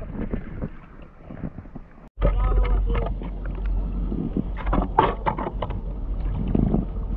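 Creek water splashing and rushing close to a tube riding the current, with a stick dipped in as a paddle. Wind rumbles low on the action camera's microphone. The sound drops out briefly about two seconds in, then comes back louder.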